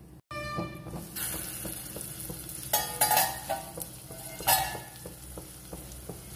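Thick tomato chutney sizzling and spluttering in oil in a steel kadai on a low gas flame, with a few louder spits along the way. The oil has separated out: the chutney is at its finished stage.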